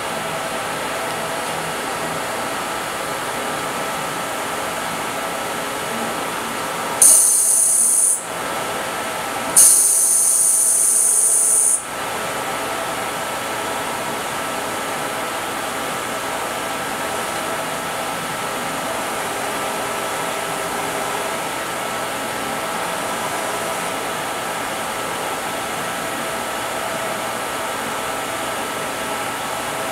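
Bridgeport EZ-Trak SX 2 HP variable-speed milling machine running with a steady mechanical hum and a few steady tones. Two loud bursts of compressed-air hiss come about seven and ten seconds in, the second lasting about two seconds, each starting and stopping abruptly.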